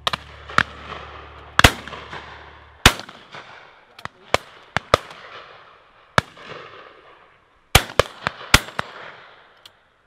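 Shotguns firing again and again at driven pheasants from a line of guns: about fifteen shots, some in quick doubles and a burst of five near the end, each trailing off in an echo.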